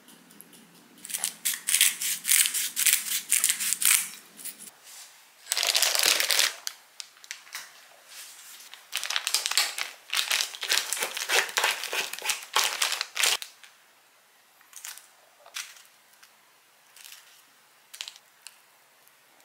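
Thin plastic piping bag crinkling in several dense spells as it is handled and the potato-egg-mayo filling is worked into it, followed by a few scattered light clicks and rustles.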